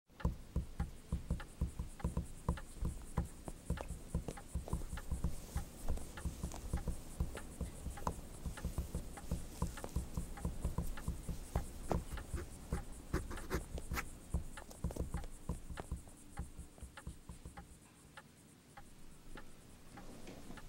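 Fingers tapping and drumming restlessly on a bentwood chair's wooden armrest: quick, uneven taps and clicks, several a second, fading out about three seconds before the end.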